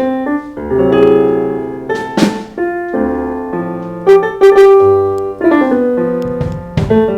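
Electric keyboard played in a loose run of chords and single notes, with a few sharp clicks between them.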